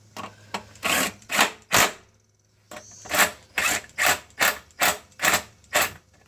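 Ratchet wrench ratcheting in short, even strokes, about two or three a second, as bolts are tightened: three strokes, a pause of about a second, then seven more.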